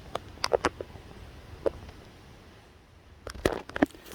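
Scattered short, sharp clicks and knocks over a quiet background: a few in the first two seconds, then a quick cluster of them about three and a half seconds in.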